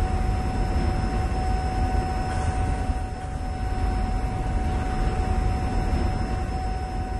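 Diesel locomotive sound of the GP7 running steadily as the train moves along: a low rumble with a constant whine held above it.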